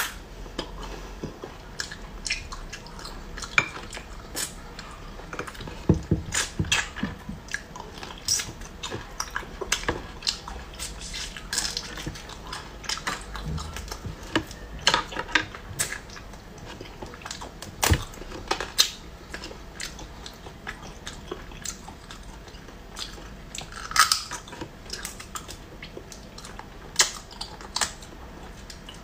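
Cooked hermit crab shell and claws cracked and pulled apart by hand, close to the microphone: irregular sharp cracks, snaps and clicks, with some chewing of the meat.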